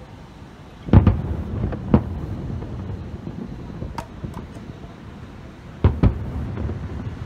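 Aerial firework shells bursting: loud booms about a second and two seconds in and another close pair near the end, each followed by a low rolling rumble, with a few sharp cracks in between.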